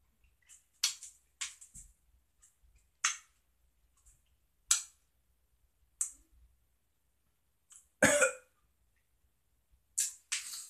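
A person chewing sour gummy candy with the mouth closed: a string of short, wet lip smacks about every second or so, with a short throat sound like a cough about eight seconds in.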